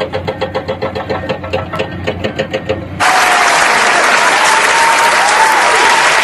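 Heavy diesel machine engine running with a rapid, even pulse, cut off abruptly about three seconds in by loud applause.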